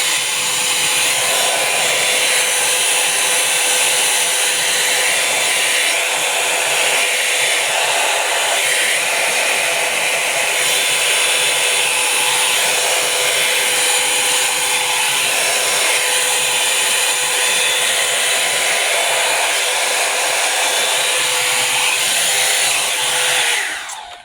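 Revlon Volumizer Plus hot-air brush dryer blowing steadily: a rush of air with a steady motor whine, switched off near the end.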